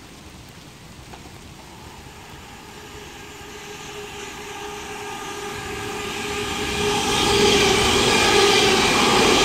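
Class 170 Turbostar diesel multiple unit approaching and running through the station without stopping. Its engine and transmission whine, several steady tones over rumble, grows steadily louder and is loudest as the train passes in the last couple of seconds.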